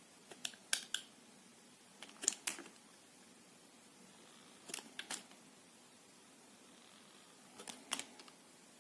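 A knife cutting soft soap: four cuts about two and a half seconds apart, each a short cluster of sharp clicks and crunches.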